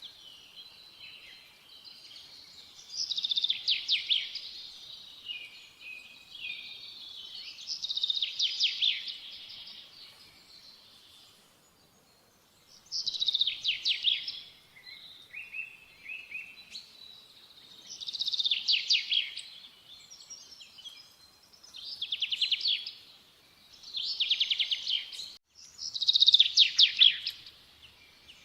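A small songbird singing: a short, rapid, trilled phrase of a second or two, repeated about seven times at intervals of a few seconds, with softer chirps between.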